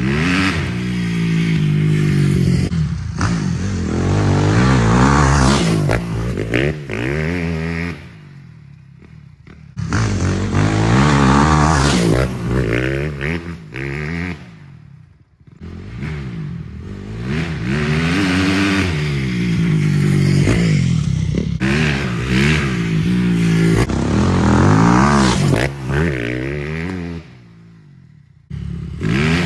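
Honda CRF250R single-cylinder four-stroke motocross bike being ridden hard, its engine pitch climbing and falling repeatedly as the rider revs through the gears. It drops to quieter stretches three times, then comes back up loud.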